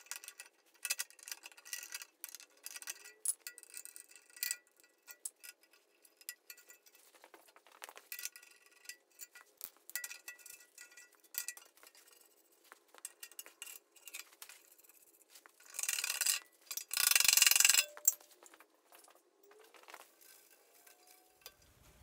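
Light metallic clinks and rattles from a steel electrical box being worked off a bandsaw's steel frame, with a louder scraping rush of noise lasting about two seconds near the end.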